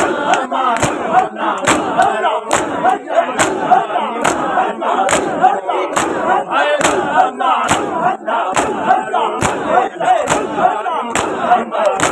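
Matam: a crowd of bare-chested men beating their chests with open hands in a steady rhythm, a loud slap a little more than once a second. Many men's voices call out together under the slaps.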